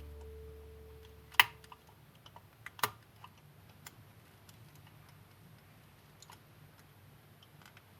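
A held music chord dying away, then two sharp clicks about a second and a half apart, with faint small ticks after them.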